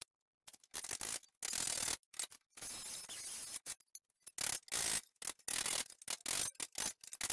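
Angle grinder working on the cut edges of a steel body panel, heard as a string of short bursts of grinding noise, each starting and stopping abruptly.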